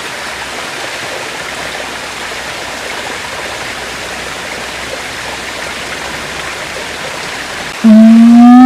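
Steady rushing background noise, then near the end a loud siamang call starts: one drawn-out note that rises slowly in pitch.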